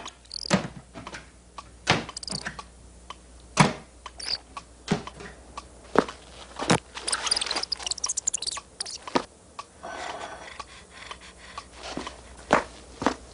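Cartoon sound effects: an irregular run of sharp taps and clicks, with a quick flurry of ticks about seven seconds in and a short hiss about ten seconds in.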